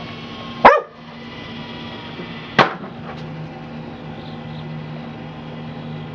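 Pit bull terrier barking: one loud, sharp bark just under a second in and a second bark about two and a half seconds in.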